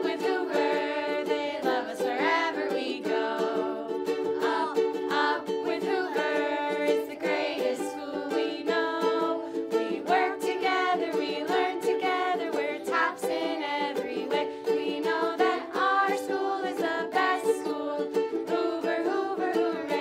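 A group of children and adults singing a song together, accompanied by two ukuleles strummed in a steady rhythm.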